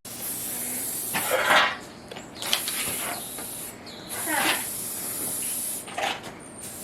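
Aerosol spray-paint can hissing in three long bursts with short pauses between, as the nozzle is pressed and released.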